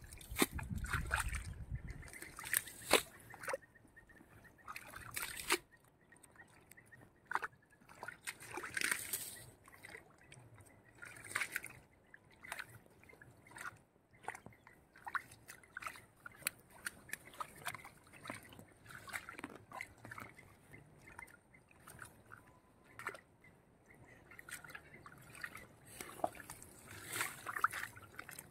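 Shallow, muddy pond water sloshing, trickling and dripping, with many irregular small splashes.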